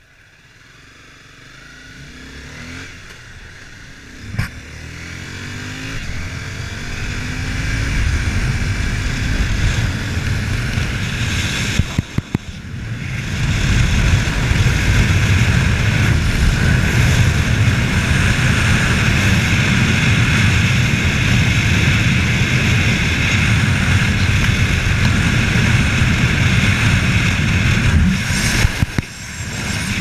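Honda CBR250R's single-cylinder engine pulling away from a standstill, its pitch climbing in steps as the rider shifts up through the gears. A brief dip about twelve seconds in is followed by a loud, steady rush of engine and wind at cruising speed.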